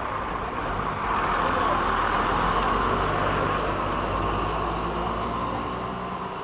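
Heavy truck passing close alongside on the road, its engine and tyre noise swelling about a second in and fading toward the end, over steady road noise.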